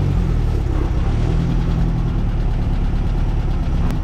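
A 1600cc air-cooled VW flat-four in a dune buggy runs at low revs as the buggy pulls away, with a brief swell in engine note at the start and a sharp click near the end. It has fresh spark plugs and corrected plug wires and is now firing on all four cylinders after a cylinder-1 misfire.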